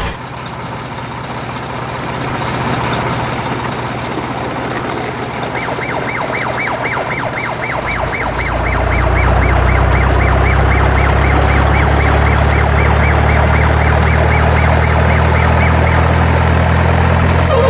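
Truck engine sound effect laid over toy trucks: an engine running steadily, becoming louder and deeper about eight seconds in, with a fast warbling siren-like tone repeating over it through the middle.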